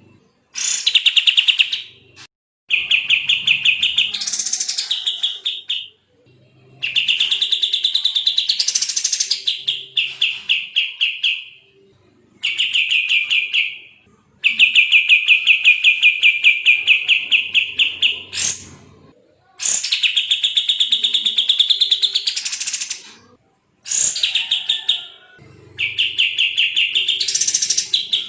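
Kapas tembak songbird singing continuously in rapid, tightly packed trills, phrases of two to four seconds broken by short pauses, several rising higher near their ends.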